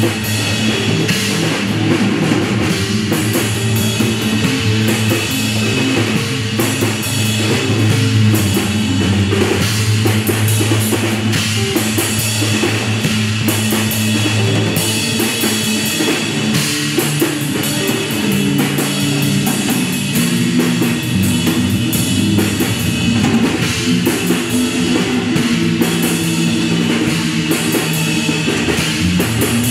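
Live trio of bass guitar, pdp drum kit and guitar playing loud, rock-like experimental music: a steady drum beat with dense cymbal work over low, shifting bass notes.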